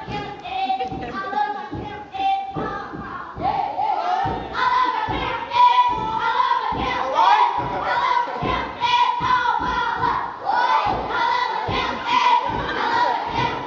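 Children's step team stepping: rhythmic stomps and claps with the group chanting together over them, the voices growing louder a few seconds in.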